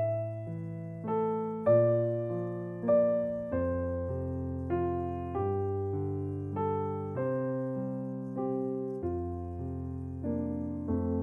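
Slow solo piano music: a gentle melody of single notes, each struck and fading, over held bass notes.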